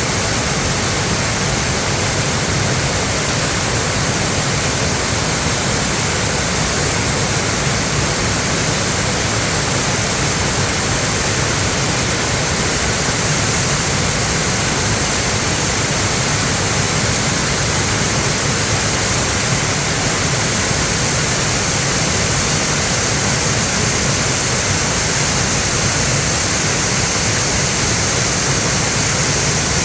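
Mountain valley stream rushing strongly over rocks, swollen by rain, a loud steady rush of water.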